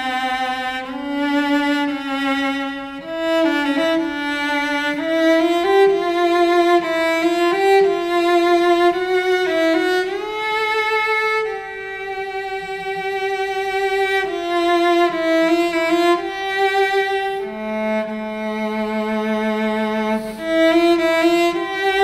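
Solo cello by Pasquale Sardone, built on the Francesco Ruggeri model, bowed in a slow melody with vibrato, climbing through its middle and upper range. About halfway through it holds one long note.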